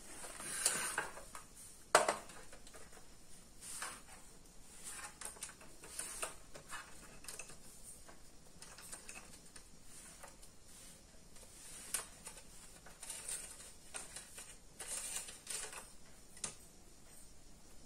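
Faint scattered clicks, taps and rustles of hands handling wires and a soldering iron over the open metal case of a set-top box, with one sharper click about two seconds in.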